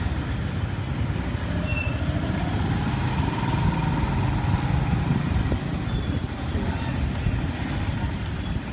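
Engine and road noise of a moving vehicle heard from on board: a steady low rumble.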